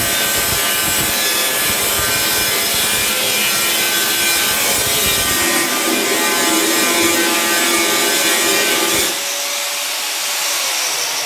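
Angle grinder grinding and polishing the sheet-metal body of an old, rusted fridge: a steady motor whine over loud rasping. About nine seconds in it comes off the work, and near the end its whine falls in pitch as the disc winds down.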